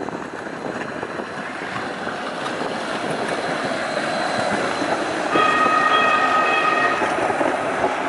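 Hudson-Bergen Light Rail tram passing close by, the noise of its wheels on the rails growing steadily louder as it nears. About five seconds in, a steady high-pitched tone sounds for about a second and a half.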